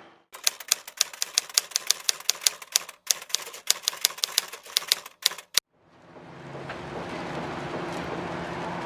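A rapid, irregular run of sharp typewriter-like clicks, about five a second, breaking off briefly about three seconds in and ending a little past five seconds. A steady machine hum then fades in.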